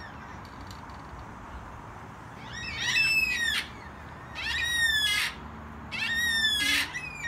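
Yellow-tailed black cockatoo giving three long calls, each falling in pitch, close together in the second half.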